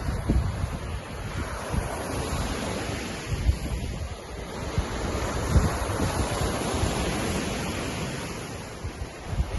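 Waves on Lake Ontario washing steadily, swelling and easing, with gusts of wind buffeting the microphone in low thumps.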